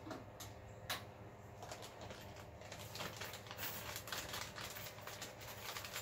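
Hand work on a metal equipment rack: two sharp clicks in the first second, then a rapid run of small clicks and rustling from about halfway, as screws and cables are worked on behind the patch panel.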